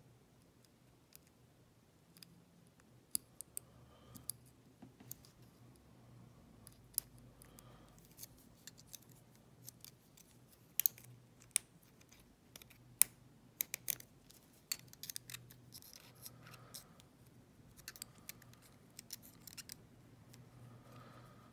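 A pick and tension wrench working in a Ruko padlock's keyway: small, irregular metallic clicks and scrapes of the pick against the pins, busiest in the middle stretch.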